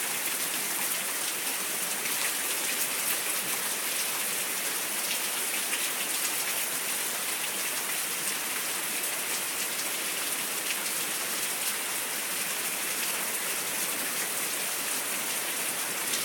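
Heavy rain falling steadily, with a dense patter of drops hitting surfaces close by.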